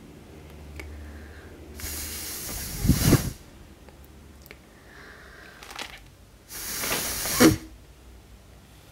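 A person blowing hard at a small candle flame: two long breathy puffs a few seconds apart, each ending in a gust that buffets the microphone.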